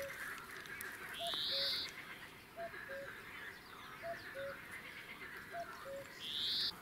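A common cuckoo calling its falling two-note "cuck-oo" over and over, about once every second and a half. Twice a louder, short hiss rises in pitch over it, about a second in and again near the end.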